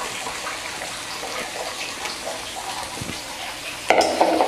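Chopped onion, capsicum, green chilli and garlic frying in hot oil in a kadai with a steady sizzling hiss. Near the end a metal ladle scrapes and clatters against the pan as the vegetables are stirred.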